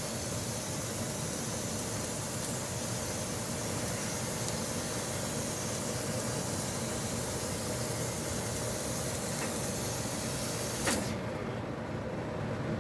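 Fiber laser cutting machine cutting 8 mm plate: a steady hiss of the gas jet through the cutting head, with a hum underneath. About eleven seconds in there is a click and the high hiss drops away, as the gas cuts off.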